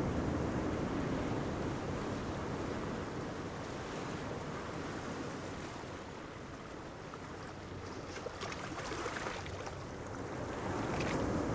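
Sea waves washing on the shore with wind, an even rushing noise that eases off in the middle and builds again near the end.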